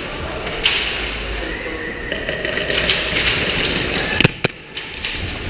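Footsteps and gear rustle of a player moving on a concrete floor, with a sharp knock about half a second in and two sharp clicks a little past four seconds.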